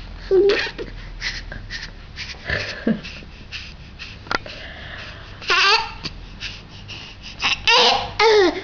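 A baby with the hiccups babbling and laughing in short bursts, the loudest bursts a little past the middle and near the end.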